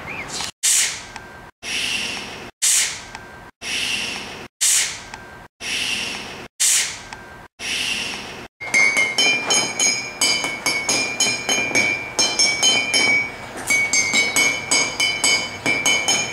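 Water-filled glass mugs struck in a quick run with a wooden stick, each hit ringing with a clear pitched tone. The run starts about halfway through. Before it come about eight short hissing bursts, each cut off by a brief silence.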